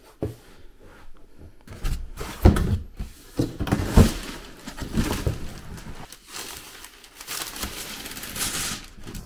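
Cardboard box handled and opened: knocks and scrapes of cardboard as the lid is lifted, then a rustle of tissue paper being folded back from a new inline skate near the end.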